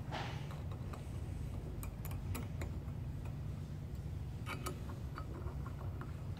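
Faint, scattered metallic clicks and ticks of a 5/32 hex key being fitted into and turned in screw heads on a metal plate, some in quick pairs. A low steady hum runs underneath.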